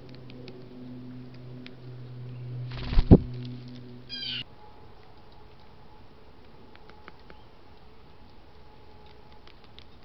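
Red-bellied woodpecker at a feeder: two loud sharp knocks close together about three seconds in, then a short wavering call a second later, followed by faint scattered taps and ticks.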